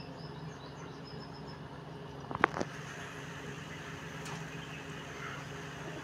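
Steady low hum of background ambience with faint high bird chirps in the first second and a half. A sharp knock comes about two and a half seconds in, followed by a smaller one.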